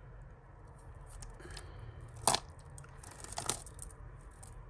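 Faux pearl bead strands being handled, the beads clicking: one sharp click about two seconds in, then a few lighter clicks about a second later.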